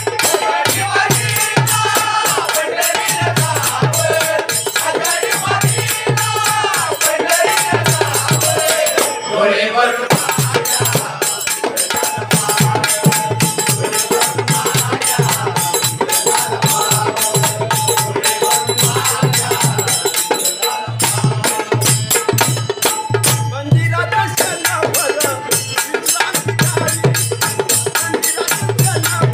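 Marathi devotional bhajan music: a drum keeps a steady beat under a constant, fast jingling of small hand cymbals, with a sustained melody and voices singing in the first part and again near the end.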